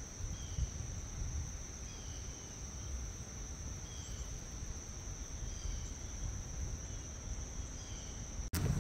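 Steady high-pitched insect trill, with short falling chirps repeating about once a second over a low outdoor rumble. Near the end a sharp click, after which the low rumble grows louder.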